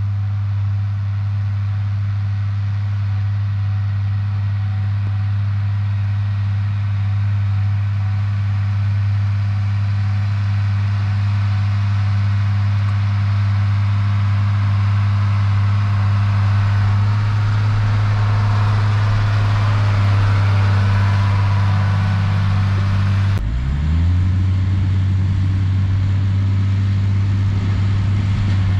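Tractor engine running at a steady pitch as it pulls a trailed crop sprayer across a wheat field, slowly growing louder as it comes nearer. About three-quarters of the way through the sound breaks off abruptly, and the engine note dips and climbs back.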